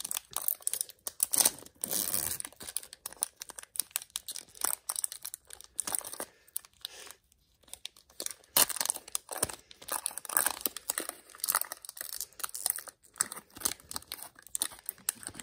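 Foil wrapper of a Pokémon Fusion Strike booster pack crinkling and tearing as it is ripped open by hand. There is a longer tear about two seconds in and a brief lull around seven seconds, then more crinkling as the wrapper is pulled back from the cards.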